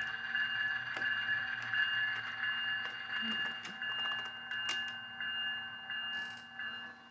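HO scale model train running on its track: a steady high-pitched whine with irregular small clicks and ticks of the wheels and running gear.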